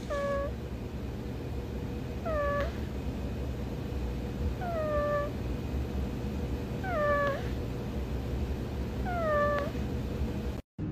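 Sleeping cat giving a short squeaky mew about every two seconds, five in all, each one falling in pitch, over a steady low rumble.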